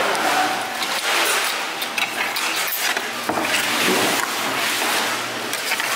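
Steady, noisy background of a busy market snack stall, with scattered short clicks and knocks.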